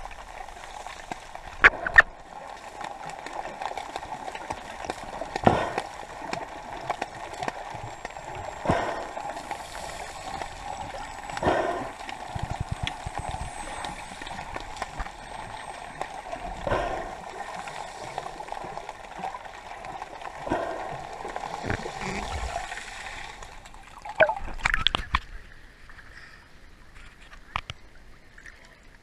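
Sea water splashing and lapping at the shore, swelling every few seconds, with a few sharp knocks near the start and again near the end.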